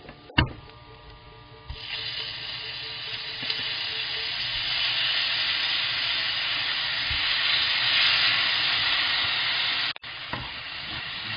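Dried anchovies, almonds and garlic sizzling in a hot frying pan as chili syrup goes in: a steady frying hiss that sets in about two seconds in. A single sharp knock comes just before it.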